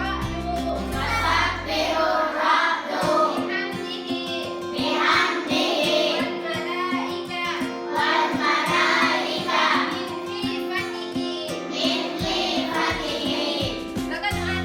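Children's song: young voices singing over backing music. The deep bass drops out about two and a half seconds in and comes back near the end.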